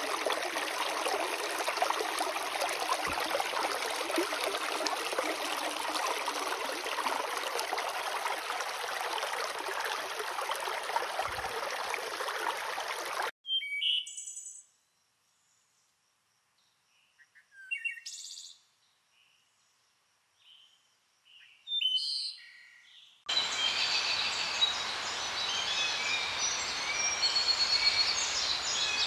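A shallow creek running over rocks, a steady rushing that cuts off about halfway through. After that come a few scattered bird chirps over near quiet, then outdoor ambience with birds chirping repeatedly.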